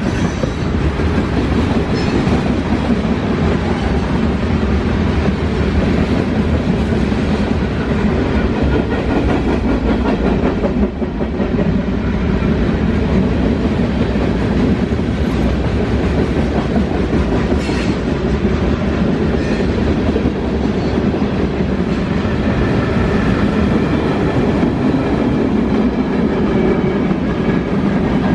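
Norfolk Southern freight train passing at close range, its cars' steel wheels clattering steadily over the rails.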